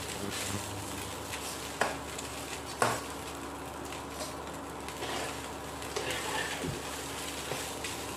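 Boiled rice noodles sizzling in hot oil as they are stir-fried with a spatula in a stainless steel pan, with stirring and scraping and two sharp knocks of the spatula against the pan about two and three seconds in.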